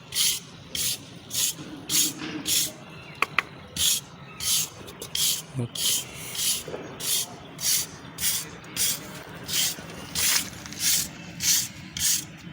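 Rhythmic rubbing strokes, about two a second, with a couple of sharp clicks a little over three seconds in.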